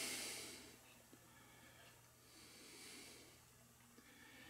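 Near silence with two soft breath-like hisses, a person breathing out close to the microphone: one fades away in the first second, and a fainter one comes about three seconds in.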